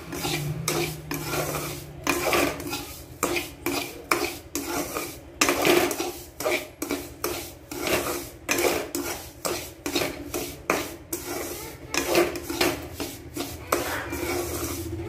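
Slotted metal spatula scraping and stirring wheat flour, sugar and ghee around a kadhai, in quick repeated strokes about twice a second: the flour being roasted with the sugar for halwa.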